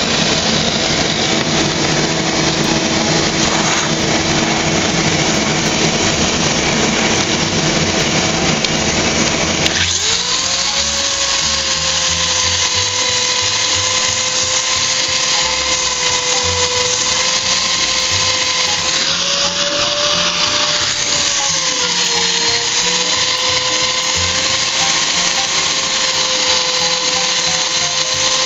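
Handheld polisher spinning a diamond polishing pad on a terrazzo floor, with a dust vacuum running alongside: a steady grinding whine. About ten seconds in, the whine jumps to a higher pitch and then wavers up and down a little.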